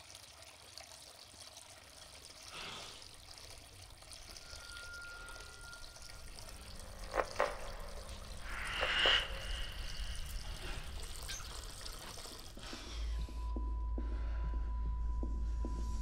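Faint water trickling and dripping, with two sharp clicks and a brief swell of rushing noise midway. About thirteen seconds in, a low hum and a steady high tone set in, with faint ticks about twice a second.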